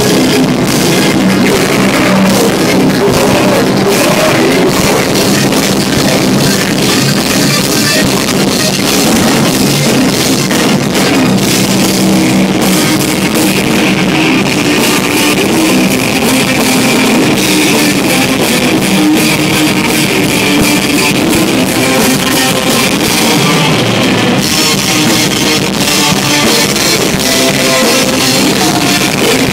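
Live rock band playing loud: electric guitar, bass guitar and drum kit together.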